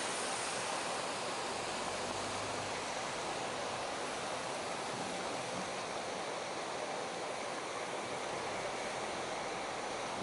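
Flooded brook rushing in a steady hiss of fast-moving water spilling over its banks.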